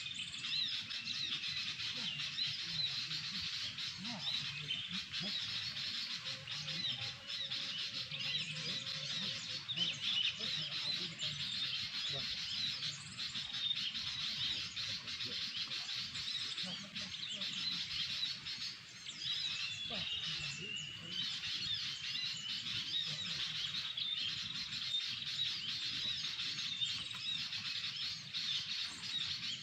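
Continuous fast bird song, dense chirping and warbling without a break: the song of the murai papua (saeran eod), the bird being lured.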